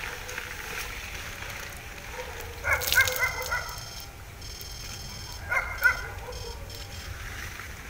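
A dog barking and yelping in two short bouts, about three seconds in and again near six seconds, over a steady low background noise.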